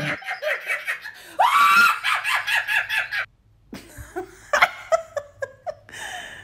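A woman laughing hard in quick repeated bursts for about three seconds. After a short break come a few brief, high sounds.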